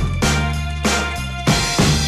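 Background music with drum hits and held bass notes.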